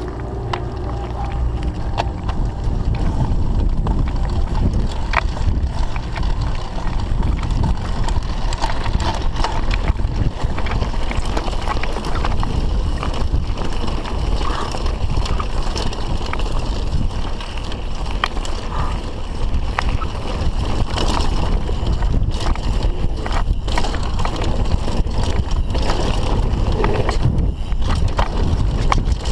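Mountain bike descending a trail at speed: wind buffeting the microphone, tyres running over dirt, and the bike clattering and knocking over bumps throughout.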